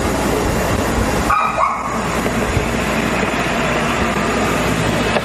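Steady hiss and outdoor background noise on the night-time camcorder footage's soundtrack, played through the hall's speakers. About a second and a half in, a dog barks briefly.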